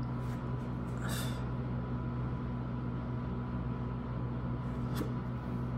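Steady low electrical hum with a faint high steady tone over it. There is a brief soft hiss about a second in and a sharp click near the end.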